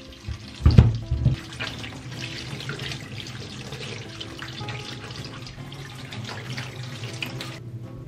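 Tap water running into a stainless steel sink while nduma (arrowroot) tubers are rubbed clean by hand under the stream, with a couple of heavy thuds about a second in; the water stops abruptly shortly before the end. Quiet background music plays underneath.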